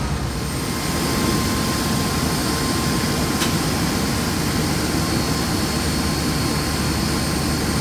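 Steady jet noise of airliners at an airport gate: a low rumble with high, steady whining tones over it.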